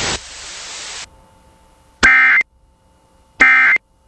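Radio hiss that drops away about a second in, then Emergency Alert System end-of-message data bursts: two short, harsh buzzing squawks about a second and a half apart, the digital code that signals the end of the alert.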